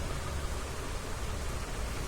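Steady background rumble and hiss with no distinct knocks or clicks.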